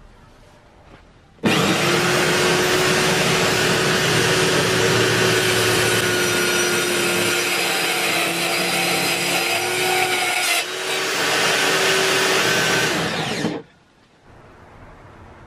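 Electric power tool running at a steady speed, switched on suddenly about a second and a half in and shut off abruptly near the end, with a brief drop in sound about ten and a half seconds in.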